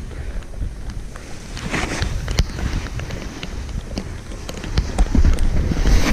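Snowboard sliding and scraping over packed snow, with wind rumbling on the action camera's microphone and scattered sharp ticks; the scraping and rumble grow louder about five seconds in.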